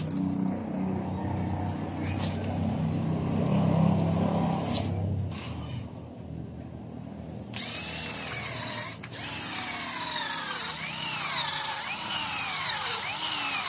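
Cordless battery drill boring into the hard wood of a jackfruit tree root. It runs with short breaks, first with a low steady hum, then from about halfway with a higher, thinner sound full of quick whines sliding down in pitch. The small bit on a battery drill makes slow going in this hard wood.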